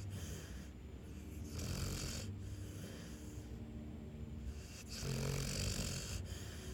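Snoring: slow, regular sleeping breaths, with two snoring breaths about three seconds apart. The second is the louder, with a low buzz in it.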